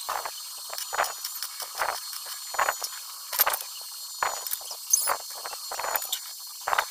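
Light metallic knocks on steel tubing, evenly spaced a little under a second apart, each ringing briefly.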